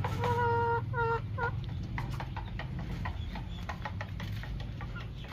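Chickens clucking: a drawn-out call about half a second in, then a couple of shorter ones, followed by scattered light clicks and taps over a low steady rumble.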